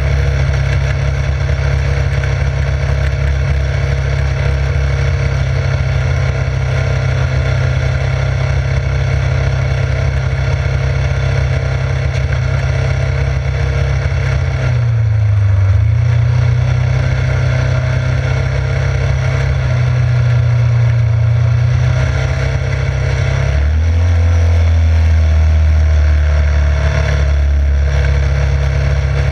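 Yamaha Grizzly 600 ATV's single-cylinder four-stroke engine running under way. Its note dips and recovers about halfway through and shifts pitch again about three-quarters of the way in, as the throttle changes.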